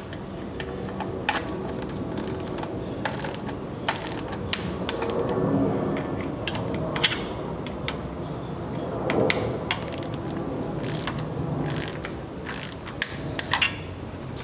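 Ratcheting torque wrench clicking in uneven strokes as it tightens band clamp bolts to torque.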